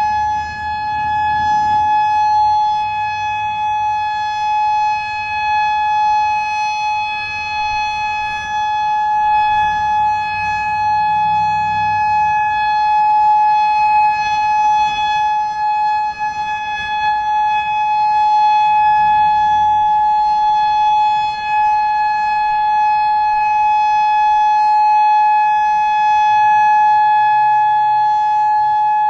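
Federal Signal DSA electronic outdoor warning siren sounding a steady, unwavering tone, the Alert (steady) signal of its monthly test.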